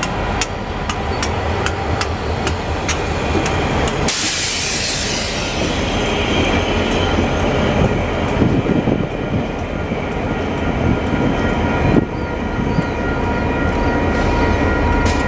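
Canadian Pacific diesel locomotives rolling slowly past in reverse: engines running, wheels clicking at an even pace over the rail joints, with a thin steady squeal. A burst of hiss about four seconds in and a single knock near the end.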